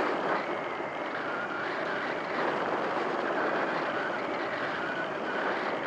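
EasyGlider Pro RC motor glider in flight, heard from its onboard camera: a steady rush of air with a faint high whine that wavers in pitch, from its electric motor and propeller.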